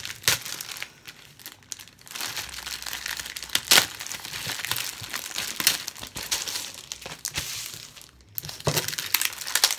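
Packaging of a Match Attax trading-card multipack crinkling and tearing as it is opened by hand. The crackles are irregular, with the sharpest a little under four seconds in.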